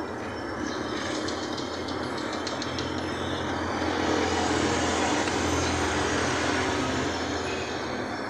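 Highway traffic passing close by as a steady rushing noise that swells louder about halfway through, then eases, over a steady low hum.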